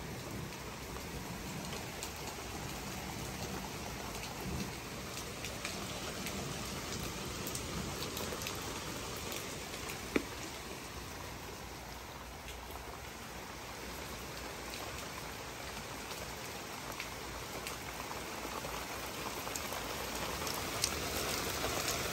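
Pouring rain hissing steadily, with scattered sharp ticks and one louder click about ten seconds in. It grows a little heavier near the end.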